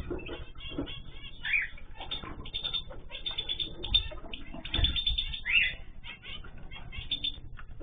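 Many cage birds chirping and calling at once in a dense, overlapping chatter, with a couple of low thumps about four and five seconds in.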